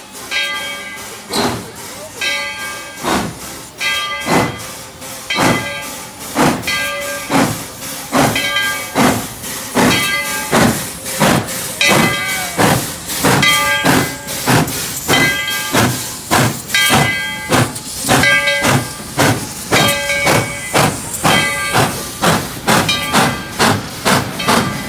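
Tweetsie Railroad's No. 12, a narrow-gauge Baldwin 4-6-0 steam locomotive, pulling away from a standing start: its exhaust chuffs come faster and faster, from under two a second to about three a second by the end. The locomotive's bell rings steadily throughout as it departs.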